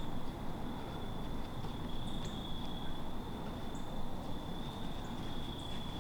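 Outdoor ambience: a steady high-pitched drone with several short, high chirps scattered through it, over a continuous low rumble.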